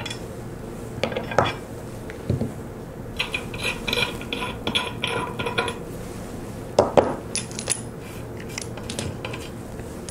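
Steel locating pins and standoffs being picked up off a steel modular tooling plate: a scattered series of metallic clinks and taps, some ringing briefly, with one sharper clink about seven seconds in.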